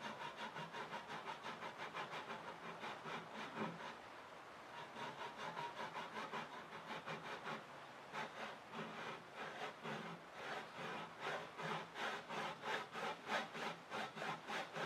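Handsaw cutting a kerf into a hardwood dowel, the start of the groove for the bench dog's wire spring. It makes steady back-and-forth rasping strokes, about two to three a second, with a short pause about four seconds in.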